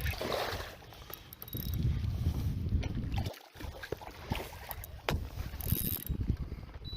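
Uneven low rumble of wind on the microphone on an open boat, broken by a few sharp clicks and knocks and a brief hiss about five to six seconds in.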